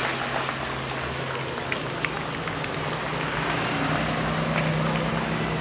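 Cars driving slowly past with their engines running at low revs, a steady low engine hum under a wash of street noise.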